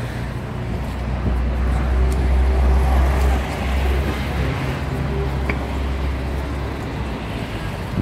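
Road traffic passing close by on a city street: a steady noise of engines and tyres with a low engine rumble, loudest in the first few seconds, that eases off about halfway through.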